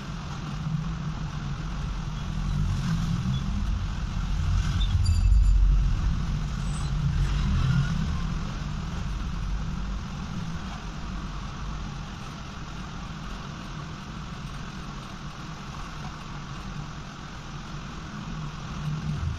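A steady low rumble with a faint hiss over it, swelling for a moment about five seconds in.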